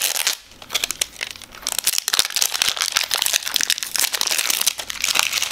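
Plastic shrink-wrap crinkling loudly in dense, rapid crackles as it is peeled and pulled off a Poké Ball tin.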